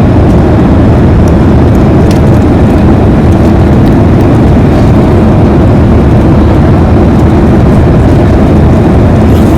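Loud, steady noise of an airliner in flight, its engines and rushing air heard from inside the passenger cabin.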